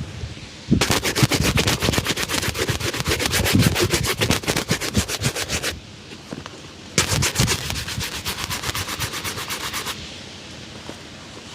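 A shoe being buffed in rapid back-and-forth strokes, about eight a second, in two runs: one of about five seconds, then a short pause and one of about three seconds.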